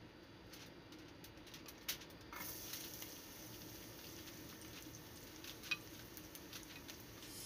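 Sliced garlic frying in hot cooking oil in a pan: a faint sizzle with scattered small pops and crackles, growing fuller about two seconds in.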